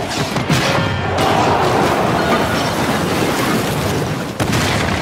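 Action-film fight soundtrack: music under heavy booming impacts and crashes, with a sharp hit about half a second in and another near the end.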